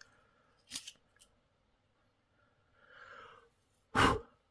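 Handling of a small metal gasoline lighter: a short click about a second in, a soft rustle, then a louder sharp click near the end.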